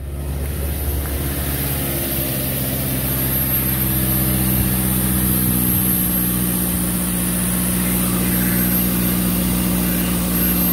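2006 Toyota Tacoma 2.7L four-cylinder idling steadily just after a start, with its newly replaced electric air injection pump running alongside. The pump switching on at start-up is a good sign that the secondary air system is working.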